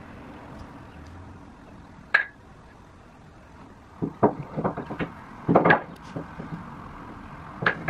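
Cut wooden 2x4 pieces knocking against each other and the workbench as they are handled: a sharp clack about two seconds in, a cluster of knocks a couple of seconds later, and another near the end.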